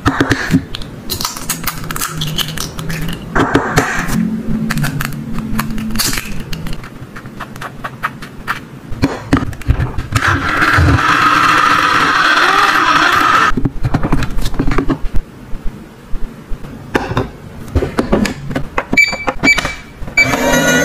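Quail eggs cracking against a clear plastic bowl, with light plastic clicks. About ten seconds in, a toy electric hand mixer's small motor runs steadily for about three seconds. Near the end, toy microwave buttons click and give short electronic beeps.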